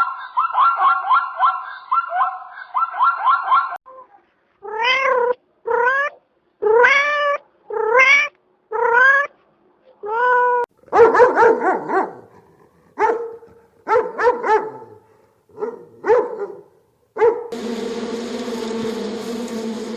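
Goose honking in a rapid series for the first few seconds, then a cat meowing over and over, about a dozen separate rising calls. Near the end, a steady insect buzz takes over.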